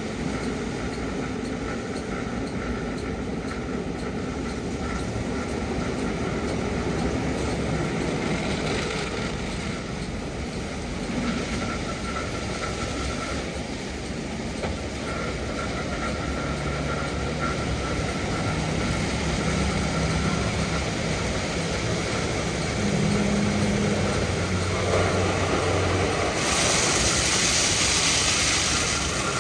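Istobal M12+ rollover car wash in its fresh-water brush wash: CarLite wash brushes spinning against the car under water, over the steady hum of the gantry motors. About halfway through, low motor tones start stepping in pitch. Near the end a louder, high spraying hiss comes in.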